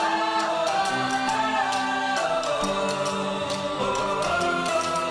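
Background song music: held chords that change every second or so over a steady percussive beat.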